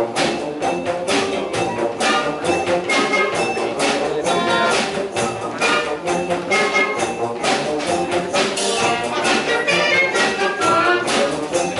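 Wind band playing, brass to the fore over woodwinds and drums, with a steady beat.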